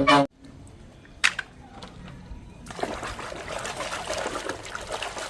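Water sloshing and trickling, starting about halfway through, after a short lull with a single click. Horn-like music cuts off right at the start.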